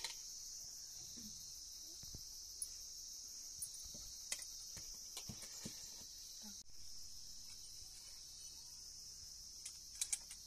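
Steady high-pitched chorus of insects such as crickets, with a few scattered light clicks and knocks.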